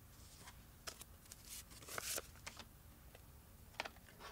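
Faint handling noises: a few light clicks and rustles as a CD is picked up and set into a laptop's open optical drive tray.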